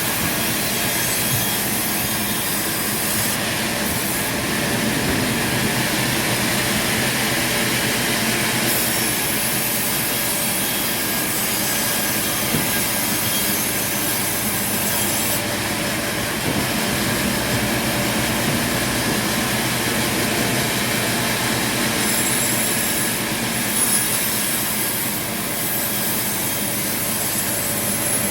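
Sawmill saw running and cutting through wood, a steady, loud machine noise that continues without a break.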